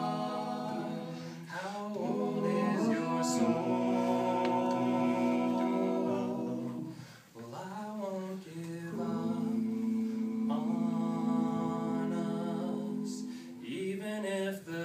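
Male a cappella group singing long held chords in close harmony, the chords shifting every couple of seconds, with a brief drop about seven seconds in.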